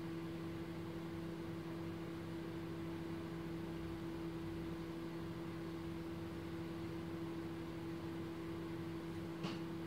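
Steady low electrical hum, two unchanging tones over a faint hiss, with one small click near the end.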